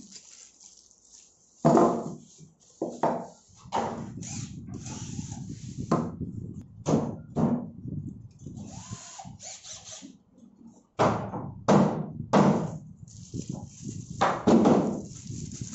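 Handling sounds at a plywood box: thunks and knocks as cylindrical steel furniture legs and a cordless drill are set down on its top, and rustling as a leg is unwrapped from its plastic bag. The loudest knocks come about two seconds in and again near eleven seconds.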